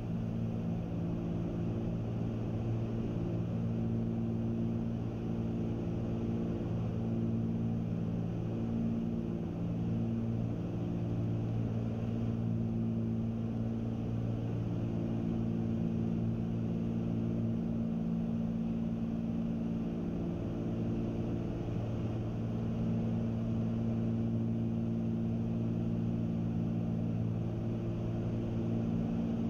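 Cessna 310Q twin-engine cabin in cruise: the two piston engines and propellers droning steadily, with a cluster of low pitched tones, some of them swelling and fading every few seconds as the two engines beat against each other.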